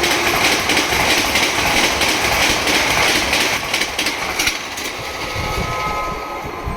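Express passenger train hauled by a WAP7 electric locomotive rushing past at speed, its coaches clattering over the rail joints, the noise slowly fading in the last seconds. The tail of the locomotive's falling horn note dies away right at the start.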